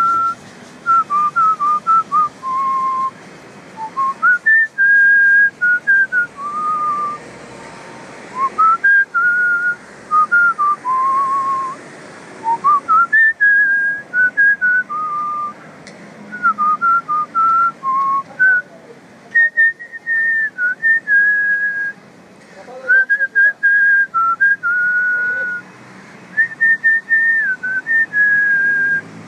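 Whistled melody: one clear line of notes stepping up and down in short phrases, with brief pauses between them, over a steady background hiss.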